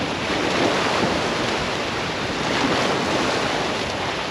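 Small sea waves washing and breaking over low rocks at the water's edge, a steady surf wash.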